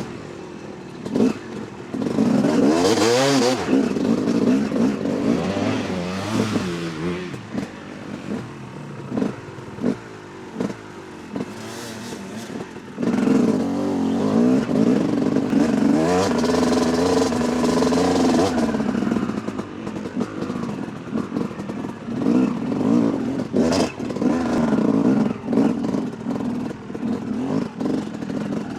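Yamaha YZ250 two-stroke dirt bike engine being ridden, its revs rising and falling repeatedly, loudest about three seconds in and again from the middle of the stretch. Short knocks and rattles come through between the revs.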